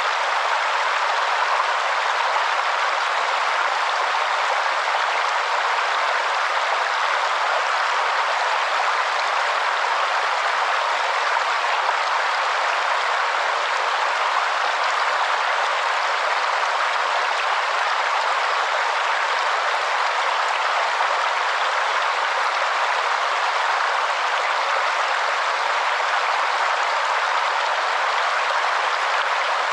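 Waterfall: water falling and rushing in a steady, unbroken hiss with no low rumble.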